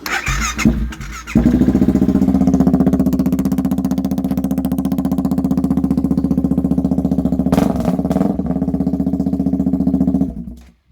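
BMW G650GS Sertao's single-cylinder engine is started: it cranks for about a second, catches, and idles steadily through its silencer, freshly repacked with new exhaust wadding, then is shut off near the end.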